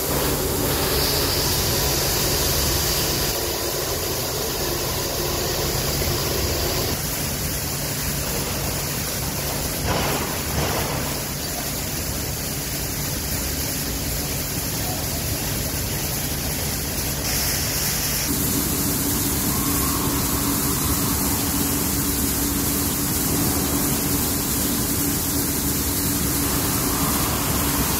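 Recirculating paddy-rice dryer running: a steady rush of blown air with a low mechanical hum, the hum changing pitch about two-thirds of the way through.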